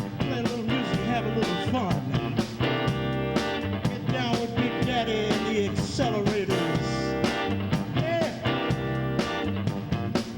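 A live rock and blues band playing an instrumental passage: electric guitar lines with bent notes over bass and a steady drum beat.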